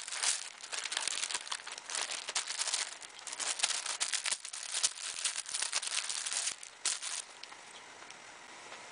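Thin plastic packaging crinkling and rustling as a soft bag is pulled out of a plastic mailer and freed from its clear plastic wrap, in a dense run of quick crackles that stops after about seven seconds.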